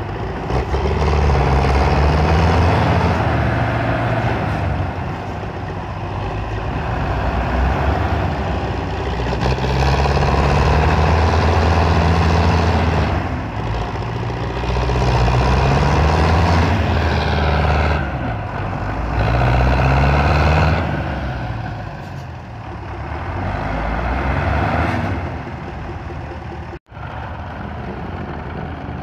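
Belarus tractor diesel engine revving hard under heavy load, straining to pull a loaded sugarcane trolley through mud. It surges and eases again and again.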